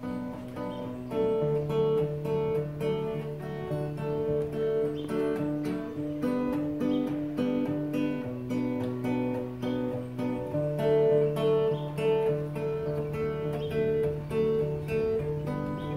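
Acoustic guitar strummed in a steady rhythm, chords changing a few times.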